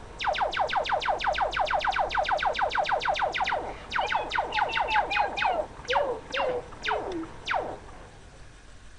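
Electronic sound effect of falling zaps like a toy laser gun: a fast string of about eight per second for a few seconds, then slower, wobbling zaps that thin out and stop near the end.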